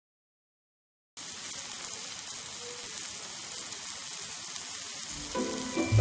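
Slices of beef and button mushrooms sizzling on a hot griddle pan, a steady frying hiss that starts about a second in. Music comes in near the end.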